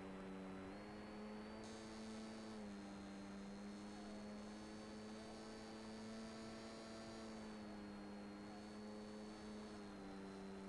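Graupner Compact 300Z brushless outrunner motor of an electric RC plane, heard through the onboard camera's audio on the analog video downlink: a steady hum whose pitch steps up and down several times as the throttle changes.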